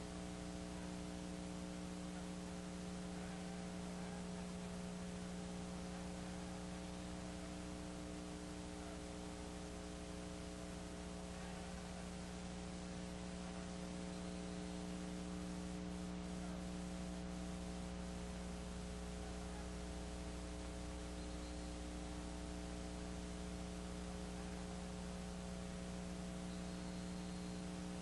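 Steady electrical mains hum over a constant hiss, the noise floor of an old home-video recording; no sound of the game itself stands out.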